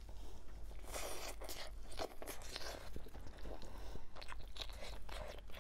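Close-miked mouth sounds of a person biting and chewing spicy pork knuckle skin: a quick run of short clicks and smacks.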